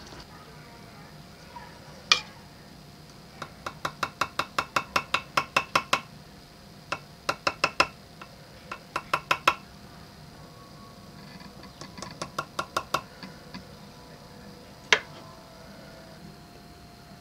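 Light metallic taps from a steel hand tool on a small platinum jewellery setting, coming in quick runs of about five taps a second, with two louder single taps.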